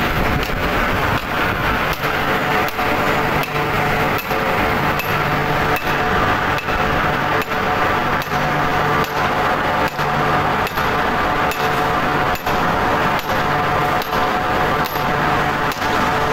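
Hand hammer striking steel fittings on a caster ladle, a blow a little more than once a second. Under it runs the steady hum of steel-plant machinery.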